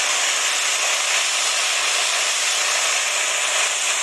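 Water tanker truck spraying water from its rear spray outlet onto the road: a steady, even hiss of spray.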